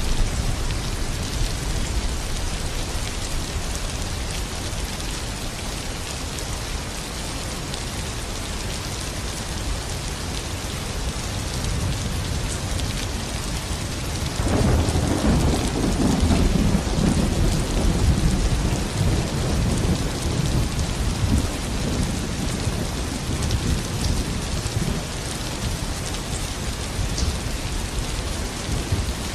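Steady rain falling in a continuous hiss, with a long low rumble of thunder that starts suddenly about halfway through and fades over several seconds.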